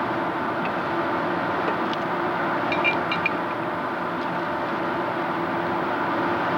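A moving train runs with a steady rumble, and a few faint short high squeals come about three seconds in.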